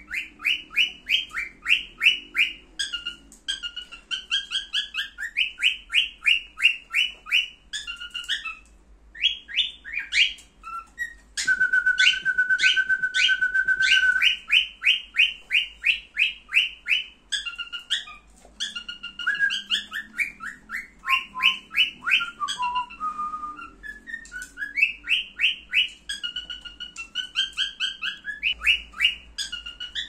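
Cockatiel singing: long runs of rapid, evenly repeated chirping notes broken by short pauses, with one held whistle lasting a couple of seconds about a third of the way in.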